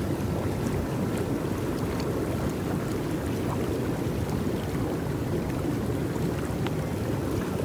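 Jets along a swimming pool's ledge churning the water: a steady rushing, bubbling noise with a few small splashes.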